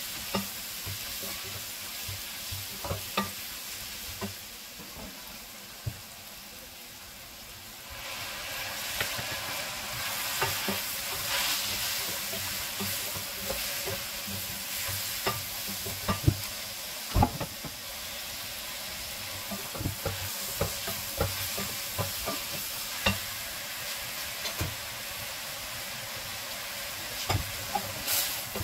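Shredded cabbage and carrot sizzling in a metal pan while being stirred with a wooden spatula, with frequent sharp knocks and scrapes of the spatula against the pan. The sizzle gets louder about eight seconds in.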